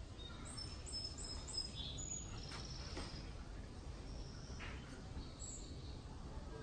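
Small birds chirping in short high notes, a quick run of four about half a second in and then scattered single chirps, over a steady low background rumble.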